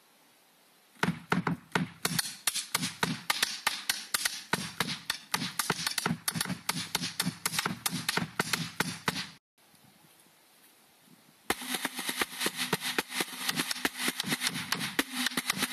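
Drums played fast: a dense run of stick strokes with a TAMA bass drum thumping underneath. It breaks off for about two seconds, then a quick run of snare drum strokes and rolls starts.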